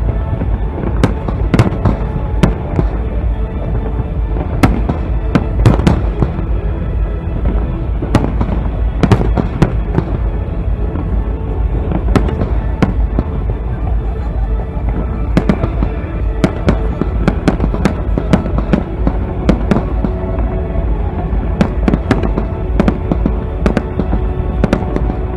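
Aerial fireworks bursting, a continual irregular string of sharp cracks and bangs, with music playing underneath.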